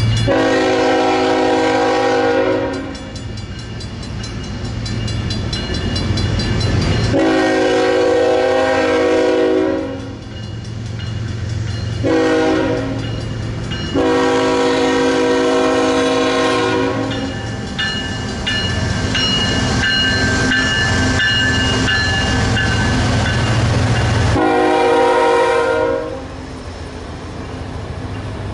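Air horn of a CSX GE ET44AH diesel locomotive blowing the grade-crossing signal, long, long, short, long, then one more blast near the end, over the low rumble of the locomotives' engines as the train passes.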